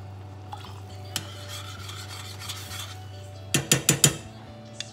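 Metal spoon stirring cornstarch slurry in a ceramic cup, scraping against the inside, then four quick clinks of the spoon against the cup about three and a half seconds in.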